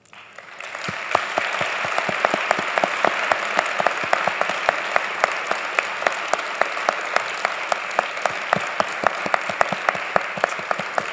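Audience applause that swells within the first second and carries on steadily, with one person's claps close to the microphone standing out at about four a second.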